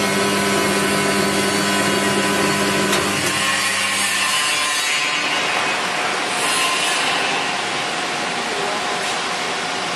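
Electric vegetable slicing machine running: a steady motor hum with a broad hissing, rushing noise over it. The low hum drops away about four seconds in while the noise carries on.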